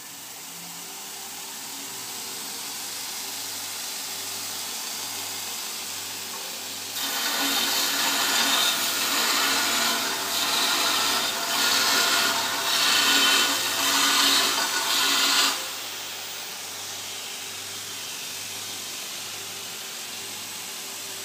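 Belt grinder running, its electric motor and sanding belt giving a steady noise that grows louder over the first few seconds. About seven seconds in, a metal bar is pressed against the belt and ground for about eight seconds, a loud harsh grinding that swells and dips; then the belt runs on unloaded.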